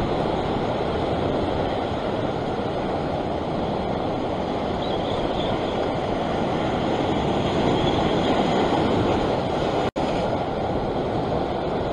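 Ocean surf washing and foaming over a rock ledge, a steady rushing noise that cuts out for an instant near the end.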